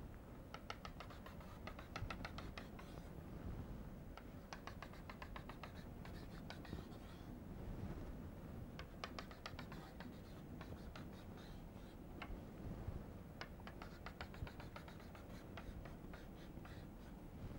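Chalk tapping and scratching on a blackboard as dashed vertical lines are drawn: faint runs of quick ticks, several a second, each run lasting a second or two with short pauses between.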